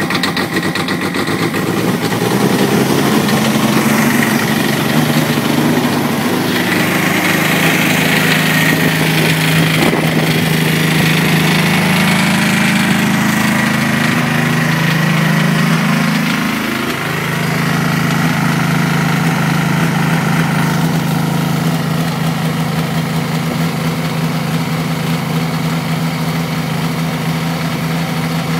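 Kubota G1800 garden tractor's three-cylinder diesel engine running steadily at high throttle just after a cold start at around freezing. The throttle was left all the way up because water had frozen in the throttle cable. About two-thirds of the way through, the note briefly dips and shifts in pitch.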